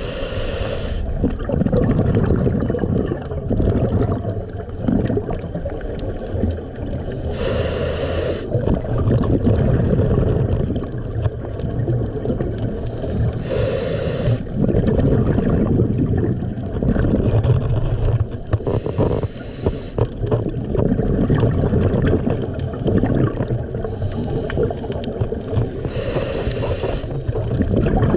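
A scuba diver's exhaled regulator bubbles, heard underwater: five short bursts of bubbling, one about every five to six seconds, over a steady low rumble of water.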